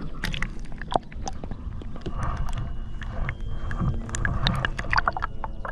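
Scattered clicks and knocks of handling aboard a kayak, over a steady low rumble.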